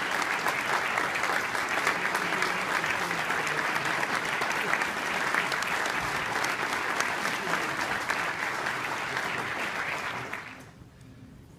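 Audience applauding, a dense patter of many hands clapping that dies away about ten seconds in.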